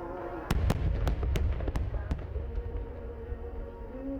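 Aerial fireworks shells bursting in a rapid string of sharp cracks over a deep rumble, starting about half a second in, with music playing underneath.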